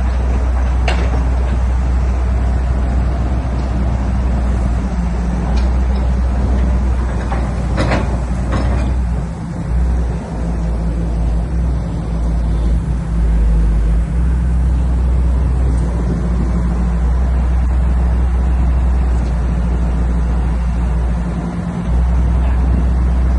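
Heavy construction machine's diesel engine running steadily, with a few sharp metallic knocks about a second in and again around eight seconds in.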